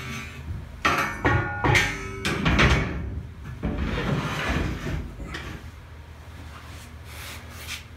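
Steel flat bar knocking and clanking against the steel base of a large toolbox as it is worked into place: a run of sharp clanks, some ringing briefly, in the first three seconds, then scraping and softer handling noise.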